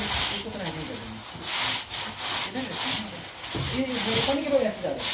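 Wooden straightedge worked back and forth across semi-dry Biocem cement-sand screed, a gritty scraping in repeated strokes about once a second as the screed is levelled.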